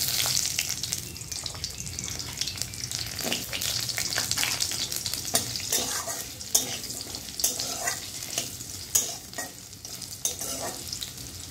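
Cubed potatoes frying in hot oil in a metal kadai: a loud sizzle that starts suddenly as they go in, then eases a little, with crackles and pops all through. Near the end a spatula stirs them in the pan.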